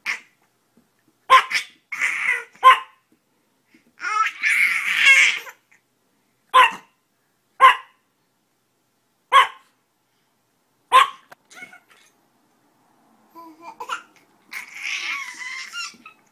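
A small dog gives short, sharp barks every second or two, about eight in all, while a baby laughs in bursts between them, longest about four to five seconds in and again near the end.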